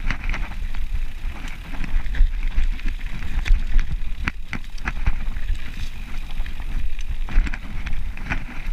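Mountain bike rolling down a dirt forest trail: wind buffeting the microphone with a steady low rumble, tyres on dirt, and frequent sharp clicks and rattles from the bike over roots and bumps.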